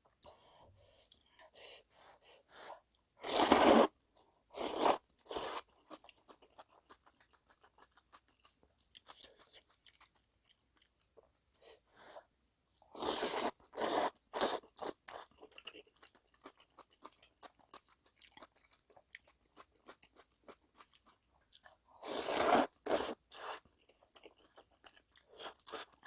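Close-up eating sounds: loud crunching bites of fresh napa cabbage kimchi in several clusters, with a run of soft wet clicks of chewing between them.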